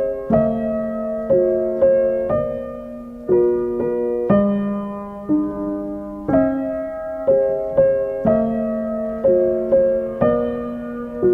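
Background piano music: gentle chords and single notes struck about once a second, each left to ring and fade.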